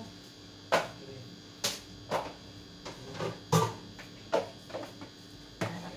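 Utensils knocking against dishes: about seven sharp clinks at uneven intervals.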